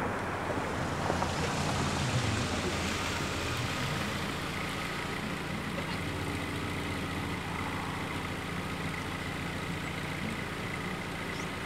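A car driving up and stopping, then its engine idling steadily. A thin steady high tone joins about four seconds in.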